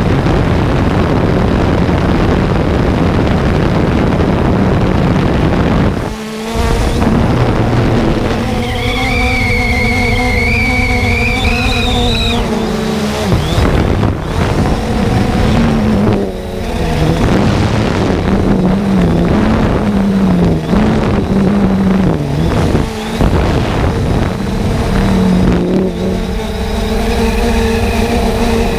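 3DR Solo quadcopter's motors and propellers whining and buzzing steadily, picked up by the GoPro riding on the drone. The pitch rises, dips and wavers as the motor speeds change, with a few brief drops in level.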